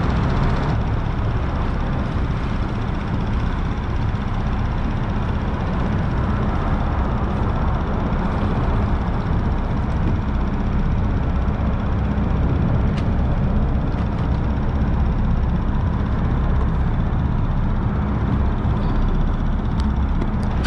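Steady low rumble of highway traffic crossing the bridge overhead, with a few light clicks near the end.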